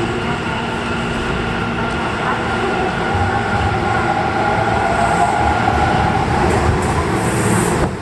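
Electric commuter train running along the platform of an underground station, a steady rumble of wheels and motors with a humming tone above it, growing a little louder from about three seconds in.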